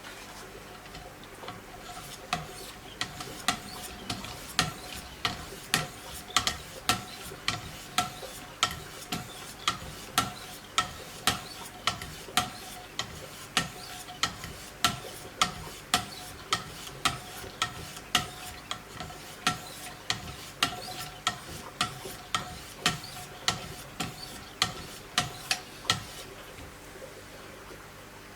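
Knife blade being stroked on a Wicked Edge guided sharpening system: rhythmic strokes, each giving a sharp click with a short metallic ring, about two a second. They begin about two seconds in and stop near the end.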